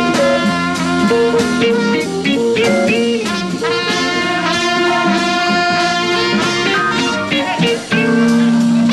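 Jazz big band playing an instrumental, brass section over drum kit.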